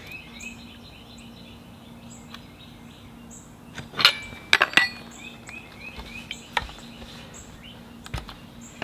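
Metal spark plug wrench clinking on a chainsaw's spark plug as the plug is tightened down: a cluster of sharp metallic clinks about four seconds in, with a few lighter ticks later.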